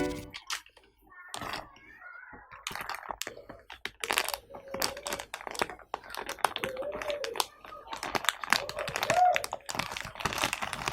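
Typing on a computer keyboard: quick, irregular key clicks starting a couple of seconds in and running on, with a faint voice in the background.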